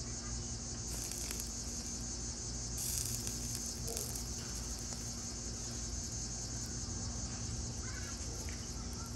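Steady high-pitched chorus of insects, crickets or similar, over a low steady hum.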